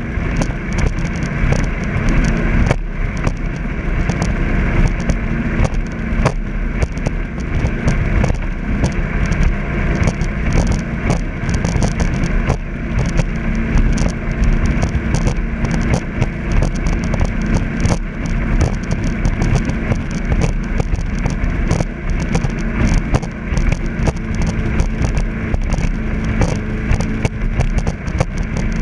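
Jet boat engine running steadily at an easy cruise, a constant drone with wind and water noise over it.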